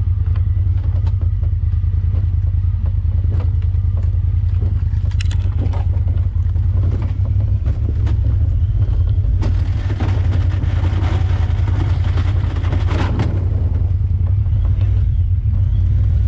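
Honda Talon 1000R side-by-side's parallel-twin engine running steadily as it drives a trail, with scattered knocks and a stretch of rough clattering noise from about ten to thirteen seconds in.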